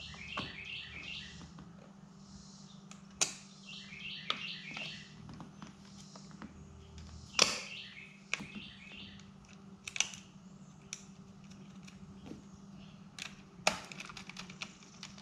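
Scattered sharp clicks and knocks of small metal parts being handled as a shift cable and its bracket are worked into place in an outboard remote control box, the loudest about seven seconds in. A bird chirps in short runs three times, over a faint steady hum.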